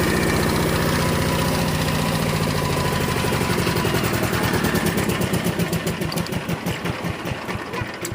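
Diesel power tiller engine running steadily, then slowing down about halfway through: its beats spread out and fade as it winds down.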